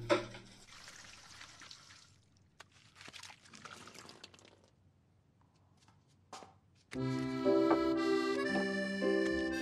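A thud at the start, then faint water running from a kitchen tap into the sink with a couple of light clicks. Soft instrumental music comes in about seven seconds in and is the loudest part.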